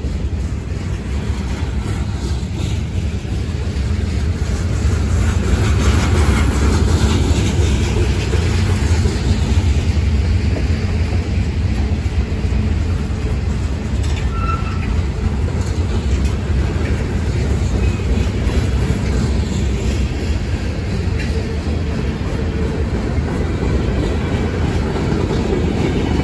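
Mixed freight cars of a long manifest train (boxcars, covered hoppers, tank cars) rolling past close by: a steady rumble and clatter of steel wheels on the rails, swelling a few seconds in.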